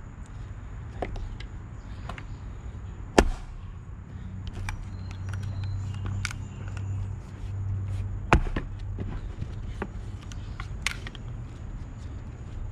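Axe splitting a maple round, with two loud, sharp strikes about three and eight seconds in and lighter knocks of wood between them. A low steady hum runs underneath through the middle.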